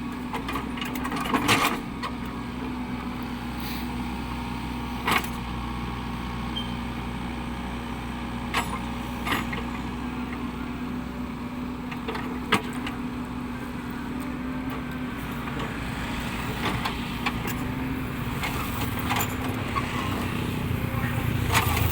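Caterpillar 307E2 mini excavator's diesel engine running steadily, with a sharp knock every few seconds and a deeper rumble building near the end.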